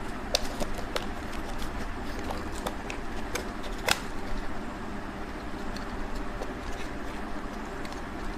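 Steady background noise with scattered light clicks and taps, one of them louder about four seconds in.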